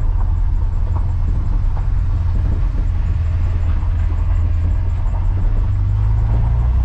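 Steady low rumble inside the cab of a 1993 Ford F-150 on the move, its 300 inline-six engine running under the noise of the tyres on a gravel road. The low drone shifts slightly near the end as the truck turns off.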